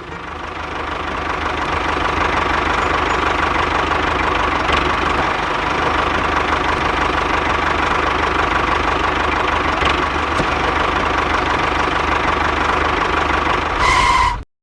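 A small motor running steadily, building up over the first couple of seconds and cutting off abruptly near the end.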